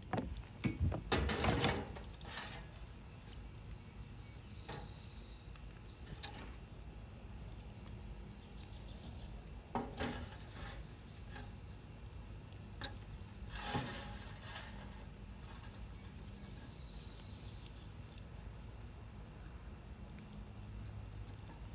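A few short clatters and knocks of a metal campfire popcorn popper being handled and set down over a campfire, over a low outdoor background.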